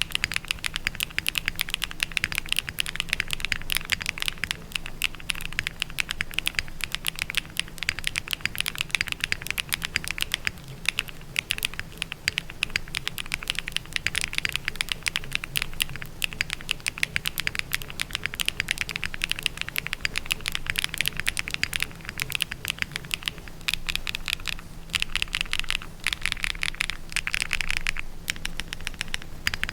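Fast, continuous typing on a Neo60 CU mechanical keyboard with Keygeek Sea Salt Taro switches, KBS 1950s doubleshot ABS keycaps, a PP plate and full foam: many keystrokes a second, with a few brief lulls.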